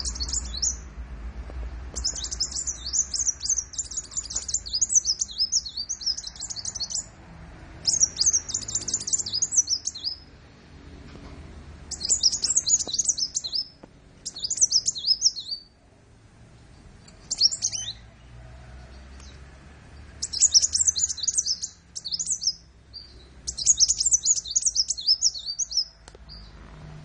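A caged sunbird of the kind kept as 'kolibri raja' singing in full voice. It gives a string of rapid, high-pitched twittering phrases, each one to five seconds long, broken by short pauses.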